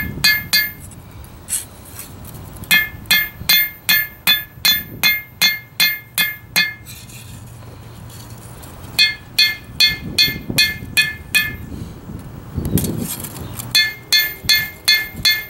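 Hand hammer striking hot steel on an anvil in quick runs of about four ringing blows a second, with short pauses between the runs: the tip of a knife blade being forged from an old file.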